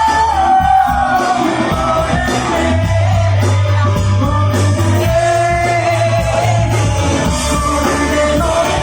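Live rock band playing, with a singer's voice carrying a long, gliding melody over the instruments. A steady low bass note holds through the middle few seconds.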